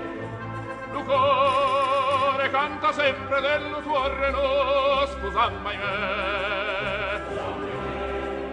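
Background music: an operatic voice singing with wide vibrato over an accompaniment, louder from about a second in.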